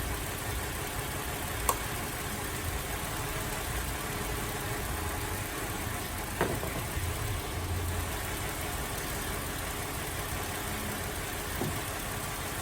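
Holden Alloytec V6 idling with a misfire, the sign of a failed number 5 coil pack. Two sharp clicks come through, about two seconds in and again about six seconds in.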